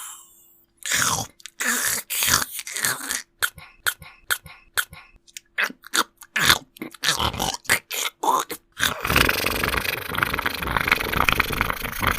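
A person making grotesque creature noises with the mouth and throat: a string of short grunts, wet clicks and crunching sounds, then a long harsh rasping hiss that lasts about three seconds near the end.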